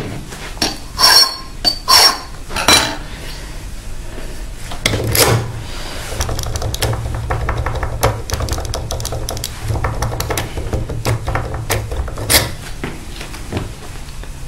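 A few sharp clinks of metal tools being picked up and set down, then a small hand file rasping in quick, rough strokes across a key blank, filing down the mark left by pin position 2 during lock impressioning. Another clink near the end.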